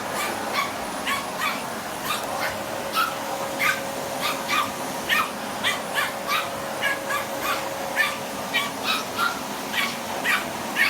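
Small spitz dog barking in quick, repeated high yaps, about two a second, at a running vacuum cleaner, whose steady hum sits beneath the barks.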